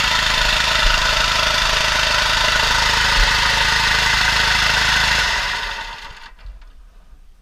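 Small engine of a portable water pump running steadily, then stopping about five seconds in and dying away over about a second.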